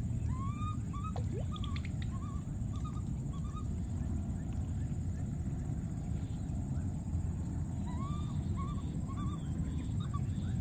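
Baby monkeys calling: runs of short, rising-then-falling calls, one group near the start and another about eight seconds in, over a steady low rumble and a faint high whine.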